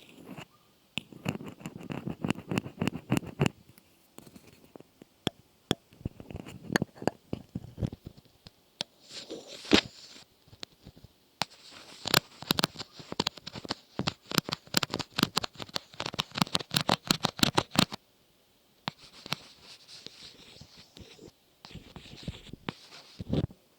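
Close-miked ASMR trigger sounds: quick runs of sharp clicks and crackling taps in bursts, with short pauses between, the busiest stretch in the middle.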